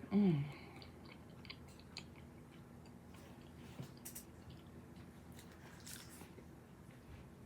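A person chewing and biting food close to the microphone, with soft wet clicks and crunches. Just after the start there is a short falling "mm"-like hum from her voice.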